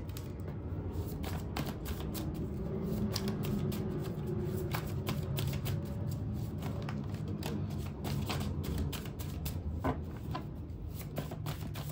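A deck of tarot cards being shuffled by hand: many quick, light, irregular clicks of cards against each other.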